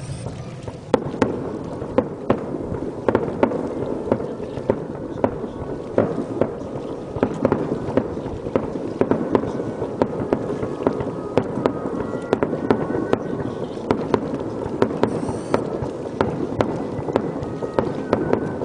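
Fireworks display: a rapid, irregular run of sharp bangs from shells bursting, about one to two a second, over a continuous dense rumble of further reports.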